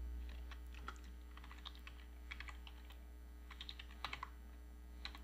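Computer keyboard keystrokes, faint, in uneven clusters of clicks as a line of code is typed, over a steady low hum.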